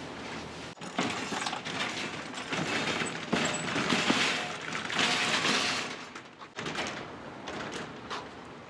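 Restaurant kitchen clatter: dishes, pots and utensils knocking and clinking, with a louder stretch of hissing noise in the middle.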